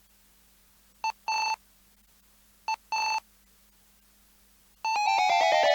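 Two pairs of electronic beeps, each a short beep followed by a longer one at the same pitch, the pairs about a second and a half apart. Near the end an electronic music intro starts with a rapid run of tones sliding downward in pitch.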